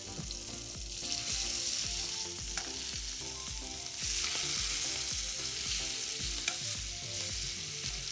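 Dry sea scallops searing in hot oil in a stainless-steel pan: a steady sizzle that swells about a second in and again about four seconds in, with a few light clicks.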